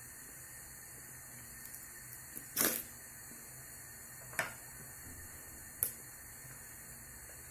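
A phone's box and packaging being handled: a few faint ticks, then three short, sharp clicks or knocks about two and a half, four and a half and six seconds in, over a steady faint hiss.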